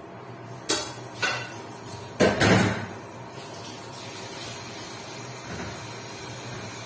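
Kitchenware being handled on a counter: two sharp knocks in the first second or so, then a louder clatter about two seconds in, over a low steady hum.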